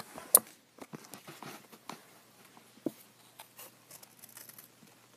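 Scissors snipping through thin printed card, with paper rustling and small clicks as the card is handled; one sharper click about a third of a second in.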